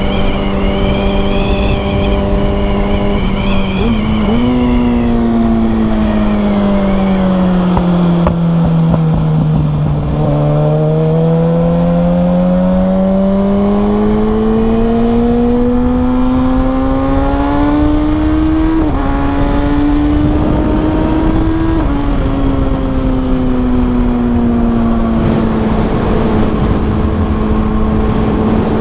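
2020 Kawasaki Ninja ZX-6R's inline-four engine running on the road. The note holds steady, sags over several seconds, then climbs for about nine seconds as the bike accelerates, before easing back and settling into a steady cruise.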